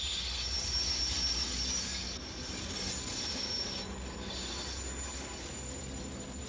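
Deutsche Reichsbahn passenger coaches rolling past behind a class 132 diesel locomotive: a steady rumble of wheels on rail with a thin, high-pitched wheel squeal over it.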